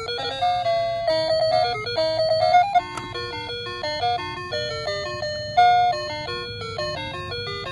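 A children's musical toy telephone's sound chip plays a simple electronic tune of stepped, beeping notes. There is a short click about three seconds in.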